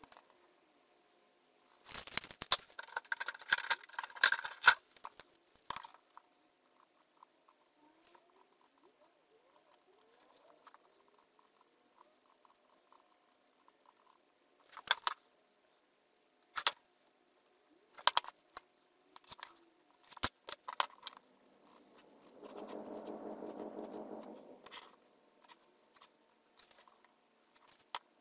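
Hand tools and a wooden board being handled on a workbench while marking out: scattered clicks and knocks, and a stretch of scraping and rustling a couple of seconds in. Later comes a steady hum lasting about two seconds.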